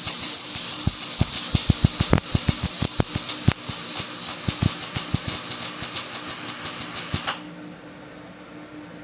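Arc of a robotic welder running, a hissing crackle full of sharp pops, that cuts off suddenly about seven seconds in as the weld ends. A quieter steady hum remains after it.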